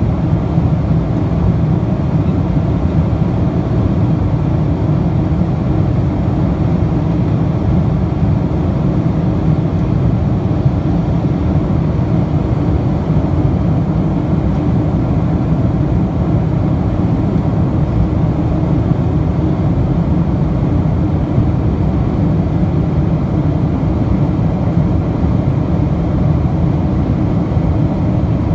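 Steady cabin noise of a Boeing 777-200 airliner in flight, heard from inside the cabin: a constant deep rush of engine and airflow with no change in pitch or level.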